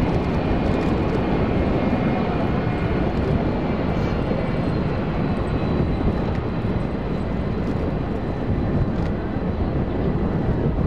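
Engines of a McDonnell Douglas MD-10-30F trijet, three General Electric CF6-50 turbofans, running at low taxi power while the aircraft lines up on the runway. A steady rush of engine noise carries a faint high whine.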